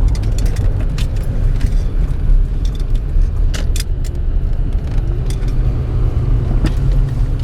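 A car rolling slowly at low speed, heard from inside the cabin: a steady low engine-and-road rumble with scattered light clicks and rattles over it.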